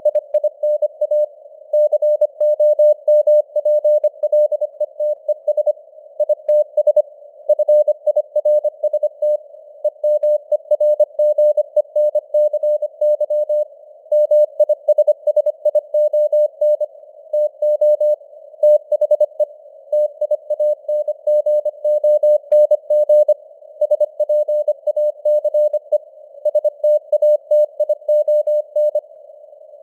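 Morse code sent at 25 words per minute as a keyed tone of about 600 Hz, dots and dashes in word groups, over a narrow band of simulated radio-noise hiss.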